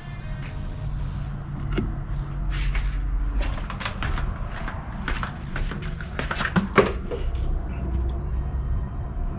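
Scattered clicks, knocks and light rattles of hand tools and car parts being handled, over a steady low hum. The sharpest knock comes near the end.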